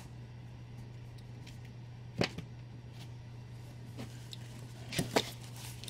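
Comic books being handled and pulled from a cardboard shipping box: a few short slaps and knocks, one about two seconds in and two close together near the end, over a steady low hum.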